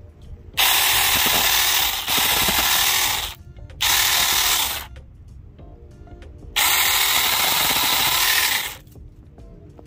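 Saker 20V cordless mini chainsaw running in three bursts as it cuts through dried plant stalks. The first burst lasts nearly three seconds, the second about one, and the third about two.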